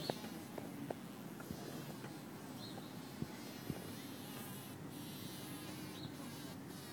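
A bee caught in a spider's web buzzing steadily, with scattered sharp clicks, the loudest right at the start.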